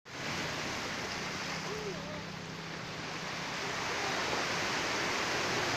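Small waves breaking and washing over a rocky shoreline: a steady rush of surf that grows slightly louder.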